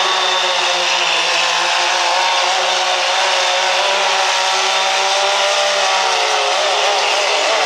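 Dodge Ram pickup's Cummins inline-six diesel engine held wide open while pulling a weight-transfer sled, a steady high-revving note that wavers slightly in pitch near the end.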